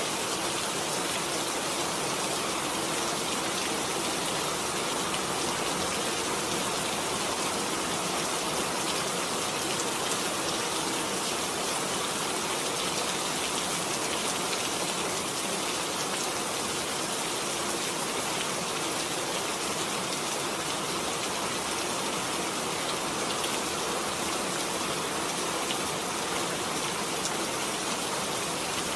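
Steady rain falling, an even hiss of rain with no changes.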